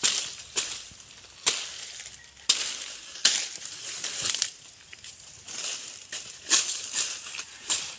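Machete hacking at a dry palm frond: about nine sharp, crisp chops at irregular intervals, each trailed by a crackling rustle of the dry leaves.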